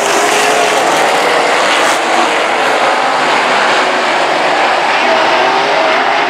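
A pack of winged RaceSaver sprint cars circling a dirt oval, their 305 cubic-inch V8 engines running together at several different pitches in a loud, steady drone.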